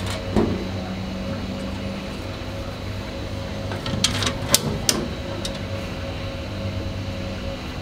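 Steady low hum throughout, with a few sharp metallic clicks about four to five seconds in as stainless steel nuts and bolts are fitted on a stainless steel grill lid.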